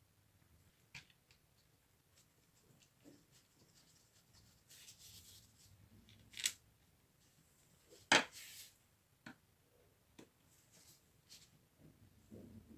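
Small parts being handled by hand at a workbench: scattered light clicks, taps and rubbing, with a single sharper click about eight seconds in.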